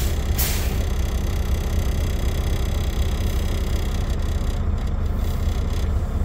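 Truck diesel engine idling, heard from inside the cab. In the first half second there are two short hisses of air as the brake pedal is pumped, bleeding down the air brake pressure for the compressor cut-in test.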